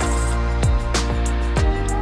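Background music with a steady beat: a low kick drum about once a second under held instrument tones.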